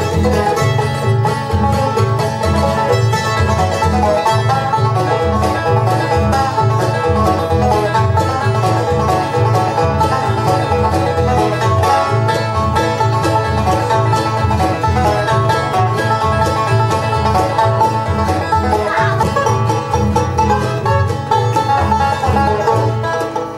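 Background instrumental music with plucked strings and a steady beat.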